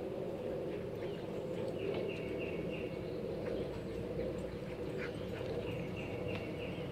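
Outdoor ambience: a steady low hum throughout, with a bird twice giving a quick series of four short high notes on one pitch, and a few faint clicks.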